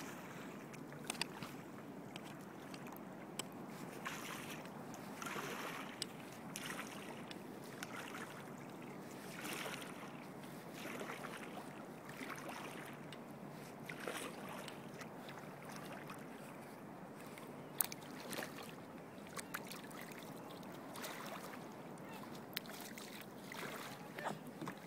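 Kayak paddle strokes swishing through sea water every second or so over a steady wash of water against the hull, with a few sharp clicks of drips or light knocks.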